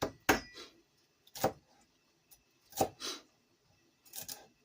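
Knife chopping on a cutting board: about six separate sharp knocks at an uneven pace, as the herbs are cut.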